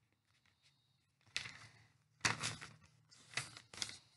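Sheet of loose-leaf paper rustling as it is handled and folded, in about four short bursts starting about a second in.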